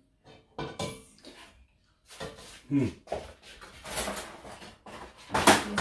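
Kitchen clatter of cookware and utensils being handled: irregular knocks, clinks and scrapes, the loudest near the end. A brief low sound falling in pitch comes about three seconds in.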